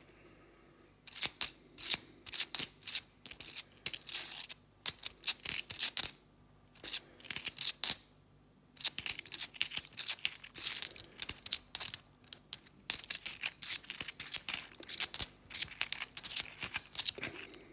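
Cupro-nickel 50p coins clinking against each other in a cupped hand as they are sorted one by one: rapid clusters of sharp metallic clicks with a few short pauses.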